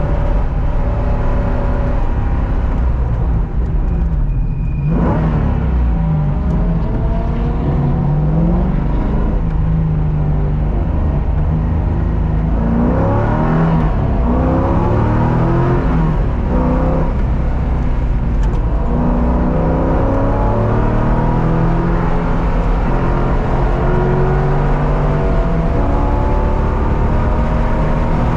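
Track car's engine under hard acceleration, its pitch rising through the gears and stepping down at each shift. There is a sharp lift about five seconds in, and a run of quick pitch changes between about twelve and seventeen seconds in as the car slows and downshifts.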